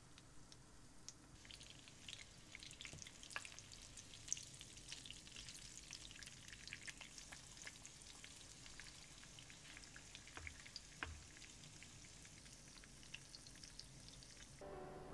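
Lemon sole fillets frying in butter and oil in a pan: a faint, steady sizzle full of fine crackles, with a couple of soft knocks about ten seconds in.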